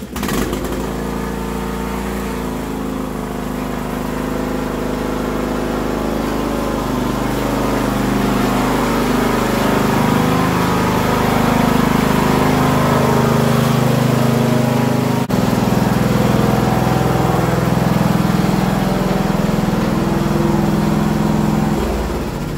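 Yard Works riding lawn tractor's small engine running steadily as the tractor is driven in and parked, getting louder as it comes closer.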